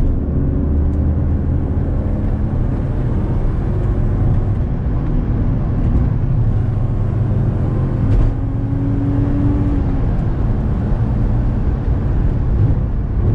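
BMW E36 325i's straight-six engine running under way with tyre and road noise, heard from inside the cabin, the engine note fairly steady. A single thump about eight seconds in.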